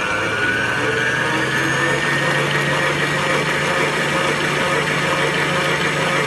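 Electric stand mixer running, its beater whipping cake batter in a stainless steel bowl. The motor's whine rises in pitch over the first couple of seconds, then holds steady.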